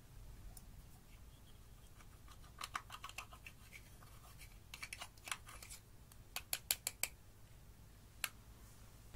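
A metal tool scraping and prying pressed black eyeshadow out of its plastic compact: several runs of scratching and sharp clicks, and a single click near the end.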